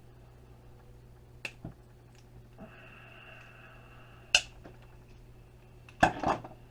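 A small plastic-cased relay being pried and cracked open with a tool: a few light clicks, a thin squeak of prying about two and a half seconds in that ends in a sharp snap, then a couple of clacks near the end.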